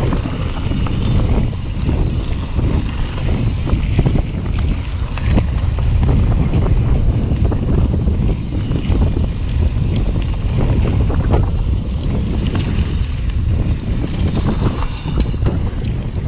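Wind rumbling on a GoPro's microphone as a mountain bike rolls down a dirt trail, with tyre noise over the loose surface and frequent short rattles and knocks from the bike.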